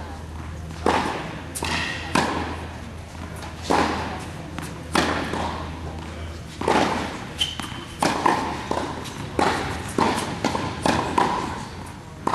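Tennis ball being hit back and forth in a rally on an indoor court: sharp racket strikes and bounces about every second, each ringing in a large hall. A brief high squeak comes about seven seconds in.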